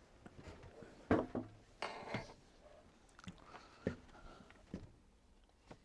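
Light handling noises from plastic building bricks and a sticker sheet: a few scattered small clicks and a brief rustle about two seconds in.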